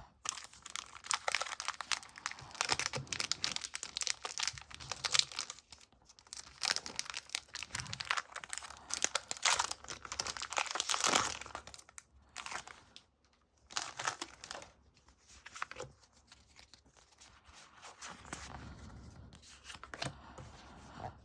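Foil wrapper of a Pokémon Evolving Skies booster pack being torn open and crinkled. The crackling is dense for the first twelve seconds or so, then comes in sparser bursts and dies down.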